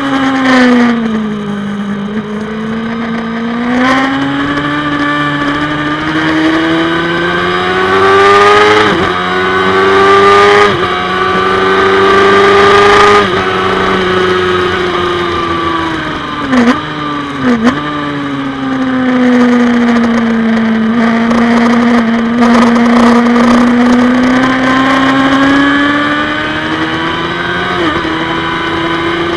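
Onboard sound of a Honda Steelie 600 racing motorcycle engine at full race pace, with wind rush. The revs climb through several upshifts over the first dozen seconds, then fall under braking with two quick downshift blips a few seconds later, and build again steadily towards the end.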